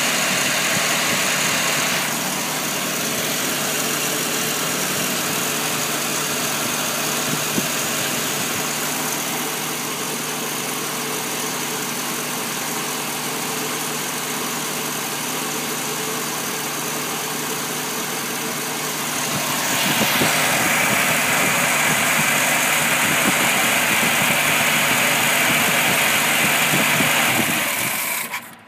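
1965 Mustang's 200 cubic-inch straight-six engine running at idle. It gets louder about two-thirds of the way through, then cuts off near the end. This is an engine that is hard to start and won't stay running after sitting all winter, despite a rebuilt carburettor, new fuel pump and distributor.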